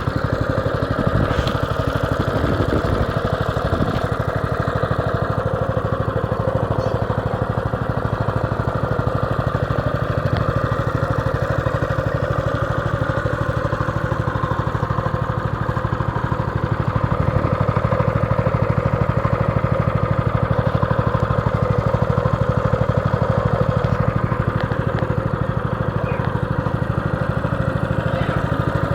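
Baja Warrior minibike's small single-cylinder four-stroke engine running steadily.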